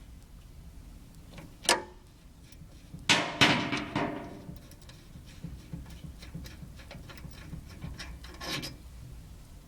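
Metal tools knocking and clanking against a rear brake caliper: a single knock, then two sharp strikes about three seconds in that ring on briefly, and a faint knock near the end.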